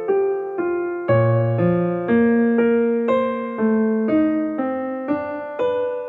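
Background piano music: a steady run of single notes, about two a second, each fading before the next.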